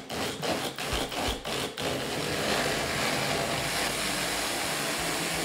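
Magic Bullet blender pulsed in a quick series of short pulses, about three a second, then run continuously from about two seconds in, chopping a thick tomatillo salsa mixture.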